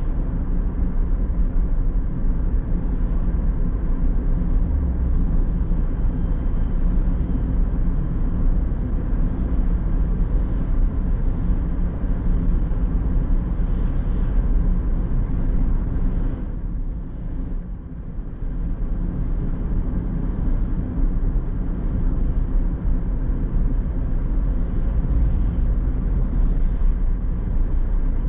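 Car driving along a road: a steady low rumble of engine and tyre noise. It drops for a couple of seconds about two-thirds of the way through, then returns to the same level.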